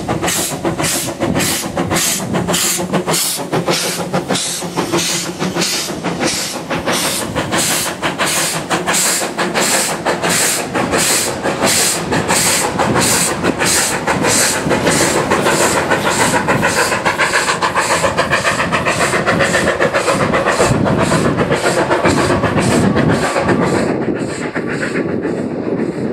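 Narrow-gauge steam locomotive working hard, its exhaust beats coming about twice a second over a steady hiss of steam, fading near the end.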